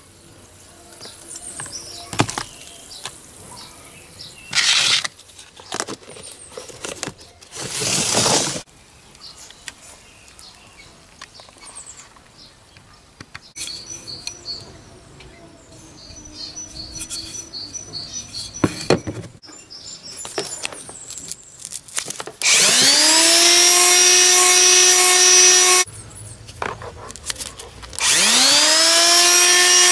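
Metabo FMS electric finishing sander switched on, its motor whining up to speed and running steadily for about three seconds, stopping, then starting up again near the end. Before that, a few brief rustles and knocks of things being handled.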